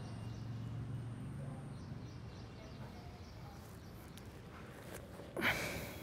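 A man's short, loud breath out, like a sigh, near the end, as he comes down out of cobra pose (bhujangasana) after holding it on an in-breath. Faint outdoor background before it.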